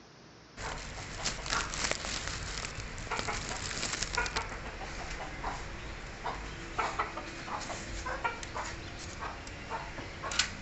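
Chickens clucking in short repeated calls, mixed with sharp knocks and rustles from feed and cages being handled.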